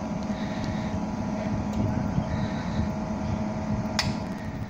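Rhaetian Railway Ge 6/6 I 'Crocodile' electric locomotive humming steadily at standstill, with a low drone and a couple of fixed higher tones. A single sharp click about four seconds in.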